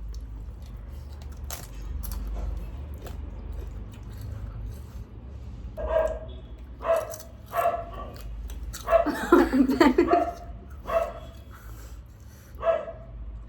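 A dog barking repeatedly in short barks, about one a second, starting about six seconds in.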